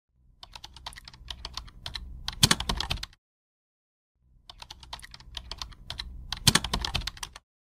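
Computer keyboard typing: two runs of rapid key clicks of about three seconds each, with a short pause between, each ending in a louder flurry of keystrokes.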